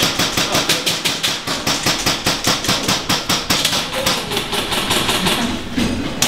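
Airsoft guns firing rapidly: a dense, near-continuous rattle of sharp shots, many a second, that breaks off briefly near the end.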